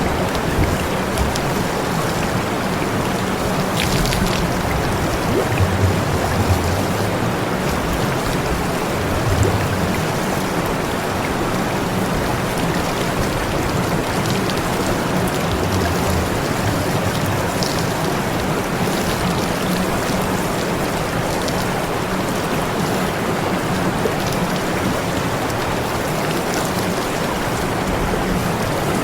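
Steady rushing hiss of water spraying, like a hose or sprinkler jet running continuously, with a low rumble underneath.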